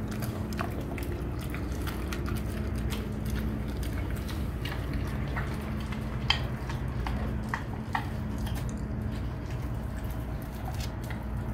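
Rottweiler chewing a raw chicken back: wet mouth sounds and irregular crunches and cracks of bone, the sharpest about six and eight seconds in.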